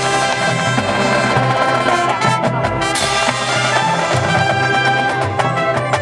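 Drum and bugle corps brass line playing loud sustained chords over the percussion section, with a quick run of drum hits about two and a half seconds in.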